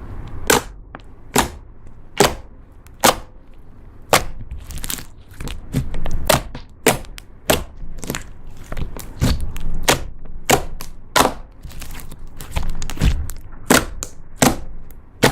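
Slime being pressed and poked by hand, giving a steady string of sharp pops, about one every second or less, over a low rumble of handling.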